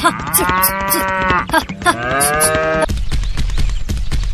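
A cow mooing twice, each long call rising and then falling in pitch. About three seconds in, a small engine starts up and runs with a rapid, even beat.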